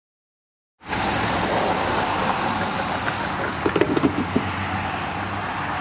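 Battered catfish fillets frying in the hot oil of a deep fryer: a steady sizzling hiss that starts abruptly about a second in.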